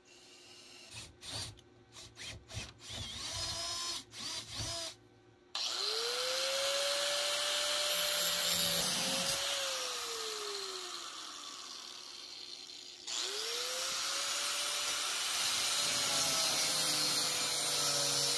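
Cordless drill run in short bursts, boring into a steel bar. Then an angle grinder spins up and grinds the steel, winds down near the middle, and spins up again to grind on.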